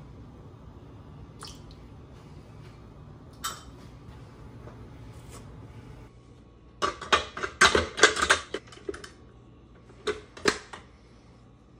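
Stainless steel mixing bowl clanking and knocking as it is handled and fitted onto a KitchenAid stand mixer's base. Faint steady hum at first, then a rapid run of metallic knocks from about seven seconds in and a few more around ten seconds.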